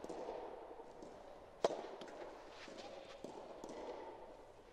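Soft tennis rally: a rubber soft-tennis ball struck by a racket, one loud sharp hit about one and a half seconds in, with fainter hits and footsteps around it, echoing in a large hall.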